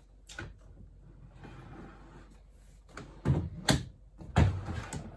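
Wooden drawer on newly replaced metal ball-bearing drawer slides being worked back into its cabinet: a light click near the start, a soft sliding sound, then three knocks as the drawer is pushed in and shut, from about three seconds in.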